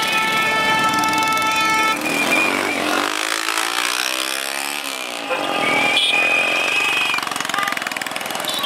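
Motorcycle engines running and revving as bikes pass along a crowded road. A stack of steady high tones sounds over them for the first two seconds, and one high tone comes back briefly a little past the middle.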